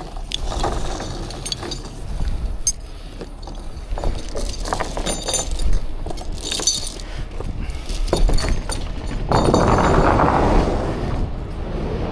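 Heavy steel tow chain clinking and rattling as it is picked up and carried, the links knocking together in many short clinks. Near the end a louder rough, scraping noise lasts about two seconds.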